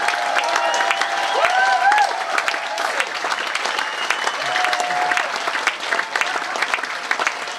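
Live audience applauding steadily, with a few voices calling out over the clapping.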